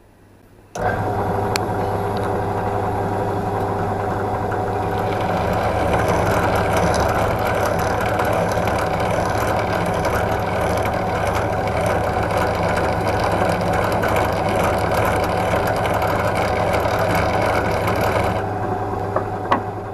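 Pillar drill motor switched on and running steadily, spinning a brake pipe fitting on a bolt in its chuck, with a file held against the spinning brass fitting to file the thread off. The metal rasping of the file gets louder about five seconds in and stops shortly before the end, as the drill winds down.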